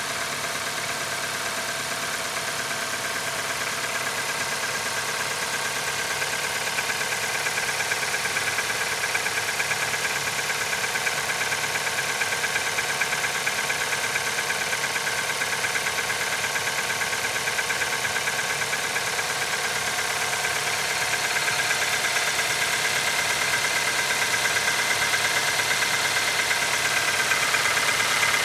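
Nissan QG18DE 1.8-litre four-cylinder petrol engine idling cold in −15 °C frost, with a knock in its running that shows when the engine is cold. The sound is steady and grows slowly louder.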